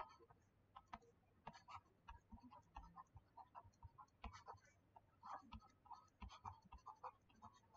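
Faint, irregular taps and short scratches of a stylus writing on a tablet screen.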